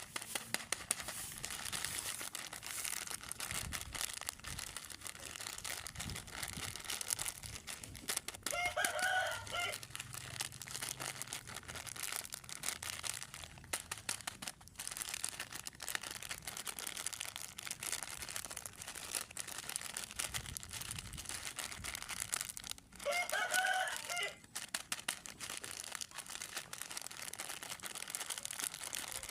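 Plastic snack packaging crinkling and rustling with many small crackles, broken twice by a drawn-out pitched call about a second and a half long, about nine seconds in and again near twenty-three seconds.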